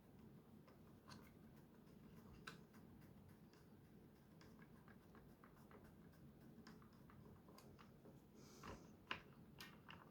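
Near silence: faint, scattered clicks and taps of plastic blaster parts being handled during disassembly, over low room tone, with a few slightly louder clicks near the end.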